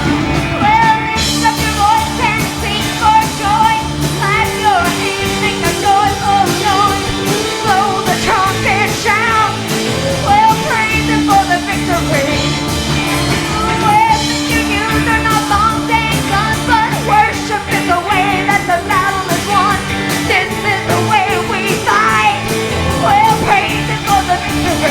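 Live church worship band playing an up-tempo rock-style song: steady chords and beat under a bending high melody line.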